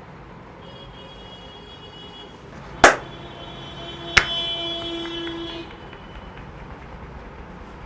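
Two sharp hand slaps of a head massage, about a second and a half apart, over a steady background hum. A tone rings on for about a second and a half after the second slap.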